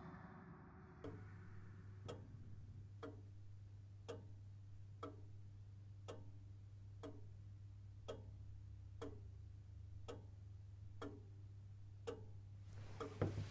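Clock ticking slowly, about once a second, over a low steady hum that starts with the first tick. Near the end the ticking gives way to a brief rustle and a few soft knocks.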